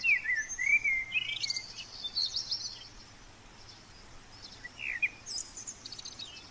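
Wild songbirds singing and calling: quick clusters of chirps and whistled gliding notes, busiest in the first two seconds and again briefly around five seconds in.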